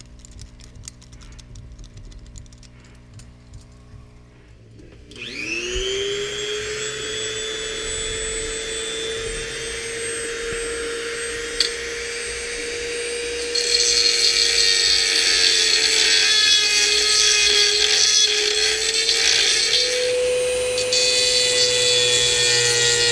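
A Dremel rotary tool spins up about five seconds in and runs at a steady high whine. From about halfway it gets louder and harsher as the bit cuts into the KX125's cylinder casting. Faint clicks of handling come before the tool starts.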